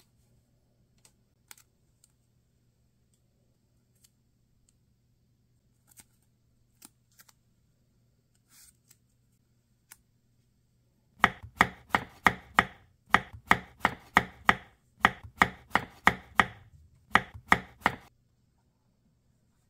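Knife chopping on a cutting board: about twenty quick, sharp strikes at roughly three a second, in short runs with brief pauses, starting about eleven seconds in. Before that, only faint taps and rustles of paper pieces being handled.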